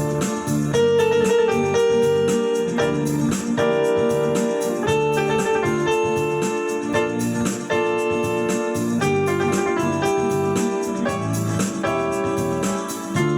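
Background music led by piano or electric keyboard, with a steady beat.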